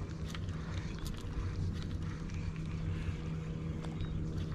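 Steady low hum of a boat engine running across the water, with faint scattered clicks over it.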